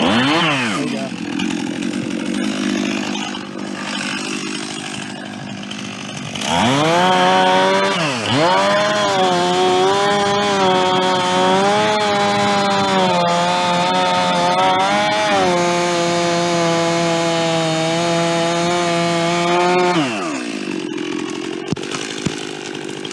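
Two-stroke chainsaw idling, then revved up about six seconds in and held at high speed for some twelve seconds, cutting into wood with the pitch wavering under load. It drops back to idle near the end.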